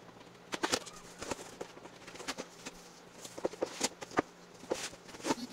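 Cardboard shipping box being cut open with scissors and its flaps pulled back: a run of irregular scrapes and crackles of cardboard and packing tape.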